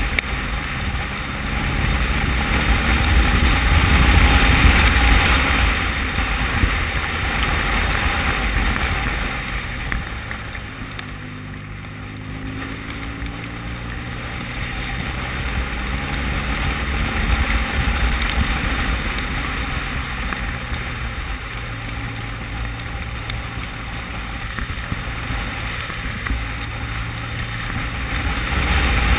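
Motorcycle riding at speed: the engine's drone under a heavy rush of wind on the microphone. The sound eases off about ten seconds in, the engine note shifting in pitch, then builds again.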